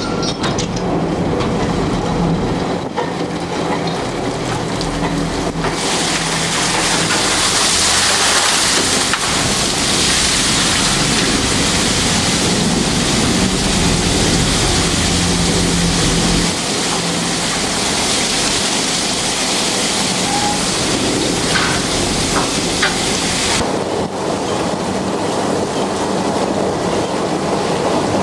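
Beam trawler at sea: a steady engine drone under a rushing, hissing water noise. The hiss grows much louder from about six seconds in and falls back a few seconds before the end.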